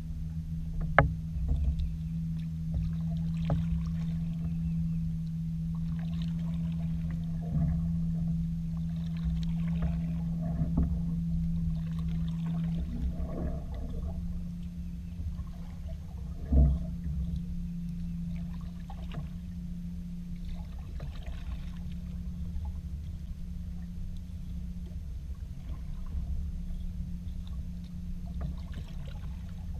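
Canoe being paddled: paddle strokes in the water and occasional knocks of the paddle against the clear plastic hull, the sharpest about a second in and another around the middle. A steady low hum and rumble runs underneath.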